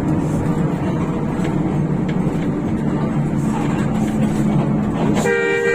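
Steady rumble and road noise of a moving bus with a rear-mounted Hino RK8 diesel engine, then about five seconds in a loud, sustained multi-tone horn blast starts.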